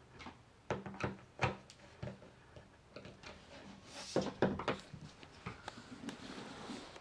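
Scattered clicks and knocks from wooden Murphy bed panels being handled and screwed together with a hand screwdriver, with a brief rub across the wood about four seconds in.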